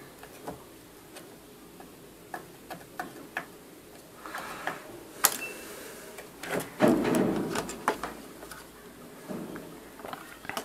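Soldering iron working on a motherboard's solder joints while a capacitor is desoldered: light, irregular clicks and taps of the tip and the board, with a sharp click about five seconds in and a louder clatter about seven seconds in as the board is handled.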